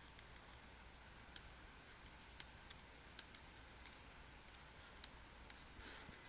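Near silence with faint, irregular ticks of a stylus writing on a drawing tablet, over a low steady hiss.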